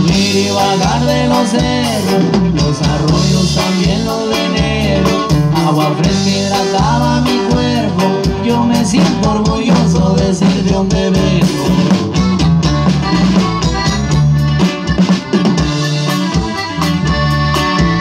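Live norteño-style band playing amplified through speakers: accordion, electric guitar, bass and drum kit, with a steady beat.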